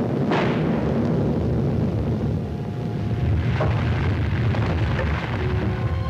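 Film sound effect of a volcano rumbling: a deep, continuous rumble with a few sharp cracks. Orchestral music comes in near the end.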